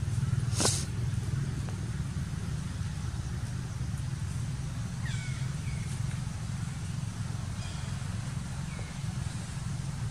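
Outdoor ambience: a steady low rumble, a sharp click under a second in, and a few short high chirps that fall in pitch, spaced a second or more apart.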